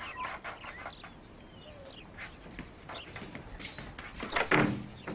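Birds chirping in the background, and about four and a half seconds in a small dog barks once, short and loud.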